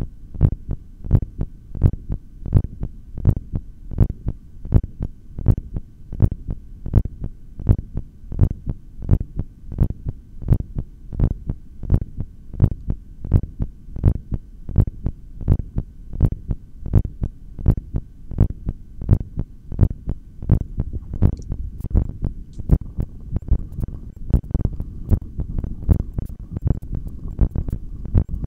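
A human heartbeat picked up through a stethoscope on the chest: a steady, even run of lub-dub beats over a low hum. It is the heart of someone more than three minutes into a long inhaled breath-hold.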